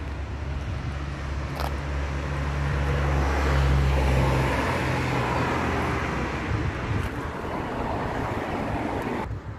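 Road traffic: a car passing on the street, its tyre and engine noise growing to its loudest about four seconds in and then fading away over a steady low rumble.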